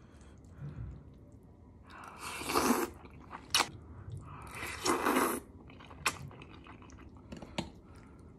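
A person slurping creamy shrimp spaghetti, two long hissing slurps about two and five seconds in, with chewing and a few sharp clicks between them.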